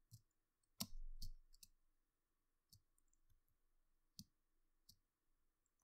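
About six faint, sharp clicks at uneven intervals from working a computer's input devices, the strongest about a second in, over near-silent room tone.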